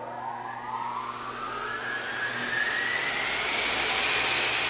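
A rising whoosh transition sound effect: a rush of noise that swells in loudness while a tone inside it climbs slowly in pitch.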